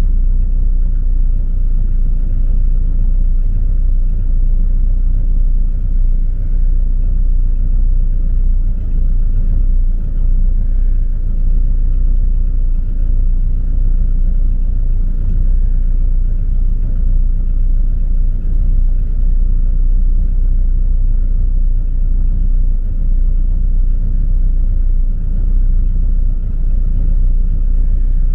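A camper's Ford 460 big-block V8 idling steadily after a cold start in freezing weather, left unrevved with its oil still thick. It is running rough and has not yet smoothed out.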